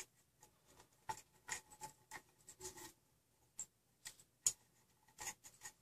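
Faint, irregular clicks and rustles of a GT2 timing belt being handled and threaded around an idler bearing and the stepper-motor pulley, the sharpest click about four and a half seconds in.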